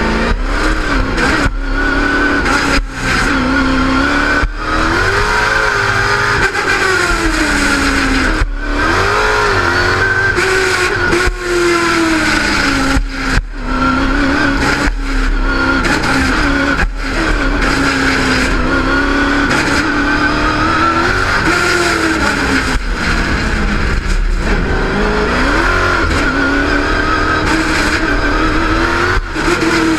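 Car engine driven hard through an autocross course, its revs rising and falling with the corners, with short dips every few seconds as the throttle is lifted.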